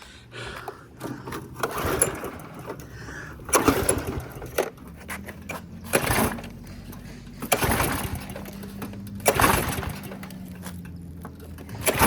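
Recoil starter rope yanked about every two seconds, five or six pulls, on a Craftsman pressure washer's Briggs & Stratton engine, which turns over with each pull but never fires: the fuel tank is empty.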